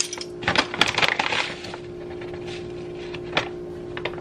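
Crinkling of a plastic pouch and clicking of plastic measuring spoons as sugar is scooped out. The handling is busiest in the first second and a half, then a couple of light clicks follow, over a steady low hum.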